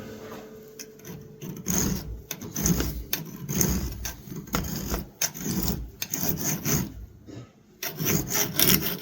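Steel pocket-knife blade being worked by hand against an abrasive in quick back-and-forth strokes, with a short pause near the end. The work is reshaping the tip and grinding out chips and nicks along the edge.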